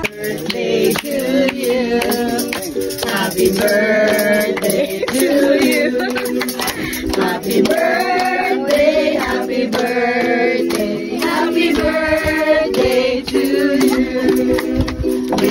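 A group of voices singing a birthday song together, with hand clapping along.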